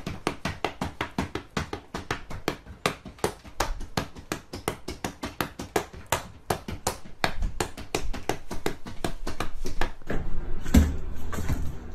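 Fast, even tapping, about five strokes a second, from a hand working a metal kitchen utensil with a round perforated head. About ten seconds in, the tapping stops and gives way to duller, lower thumps.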